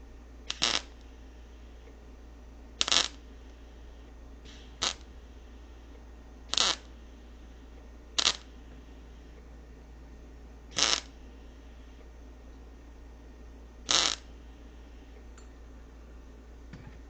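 Welder laying short stitches of weld: seven brief bursts, each well under a second and a couple of seconds apart, over a low steady hum. The short start-and-stop welds are building up metal to bridge an old bolt hole.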